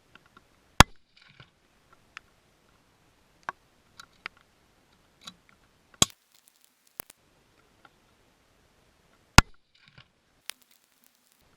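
Ruger Precision Rifle in .308 firing three shots, the second about five seconds after the first and the third about three seconds later, each a single sharp crack, with quieter clicks and knocks between them.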